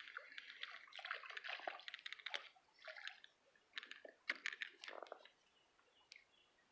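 Faint, irregular splashing and dripping of creek water as a small hooked fish is pulled from the water, with a few small clicks and rustles.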